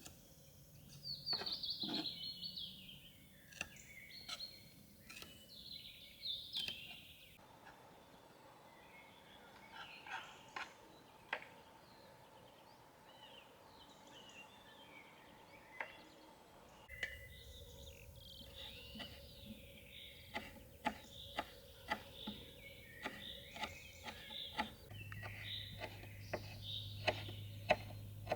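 Birds chirping and calling, with scattered sharp clicks and knocks that come more often in the last third.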